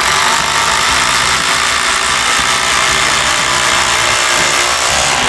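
Ryobi brushless cordless impact driver hammering a lag screw into a timber beam, the rapid impacts blurring into one steady, loud rattle under load.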